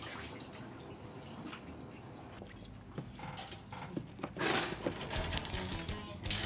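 Light clicks, taps and rustling as kittens bat at a feather wand toy through a wire cage, with a louder rustling burst about four and a half seconds in.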